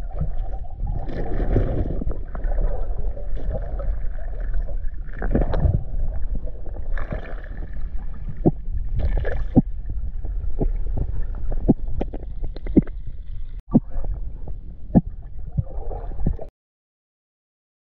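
Underwater recording on a riverbed: steady low rumbling water noise with several gurgling bursts, then a run of sharp clicks as a hand sifts through shells and gravel on the bottom. The sound cuts off to silence a little before the end.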